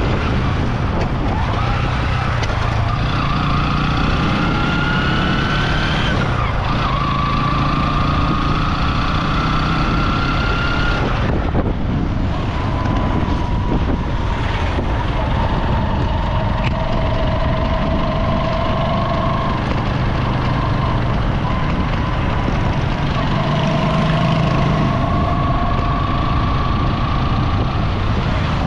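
Motor vehicle engine running under way with a steady low rumble. Its whine rises slowly, then drops sharply twice, about six and eleven seconds in, as it changes gear, and runs fairly even after that.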